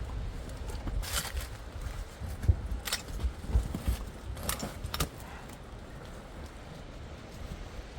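Wind buffeting the microphone, with a few short rustles and footsteps over the first five seconds.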